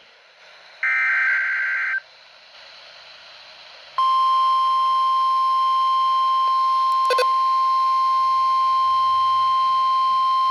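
NOAA Weather Radio emergency alert broadcast: the last burst of the SAME digital data header, a harsh one-second data buzz, about a second in. After a couple of seconds of faint hiss, the steady 1050 Hz warning alarm tone comes on about four seconds in and holds, with a brief click about seven seconds in.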